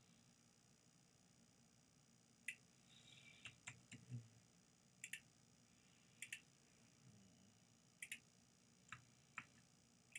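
Faint clicks of a computer mouse, spread through near-silent room tone, several of them quick double-clicks. A soft low bump comes about four seconds in.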